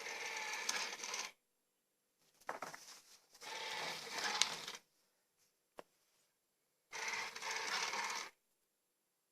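Small robot vacuum cleaner running in three short bursts of rattly, clattering mechanical noise, with dead silence between them and one sharp click in the second gap.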